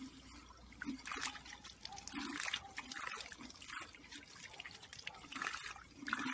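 Water trickling and splashing in a small backyard pond water feature, unevenly, with irregular swells.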